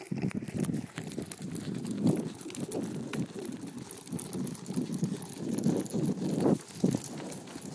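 Running footsteps on asphalt, a quick uneven patter of thuds, with the rumble and knocking of a hand-held phone jostled by the running.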